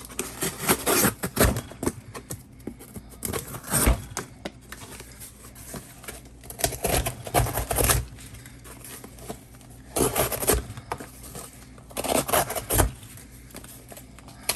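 Small serrated pocket-knife blade sawing through cardboard in several separate bursts of rough, rasping strokes with short pauses between.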